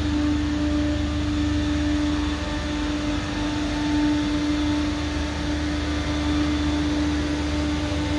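Steady hum of running machinery: one constant mid-pitched tone with fainter higher tones over a low rumble and a hiss, unchanging throughout.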